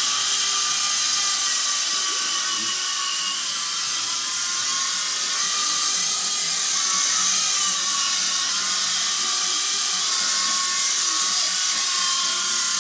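Small remote-control helicopter's electric motor and rotor whining steadily in flight, the pitch wavering slightly as the throttle is worked.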